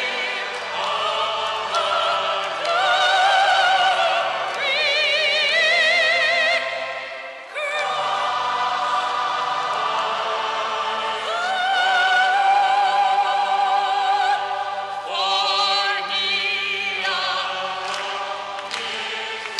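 A soprano voice singing long held notes with a wide vibrato over a quieter, low accompaniment, with a brief break about seven and a half seconds in.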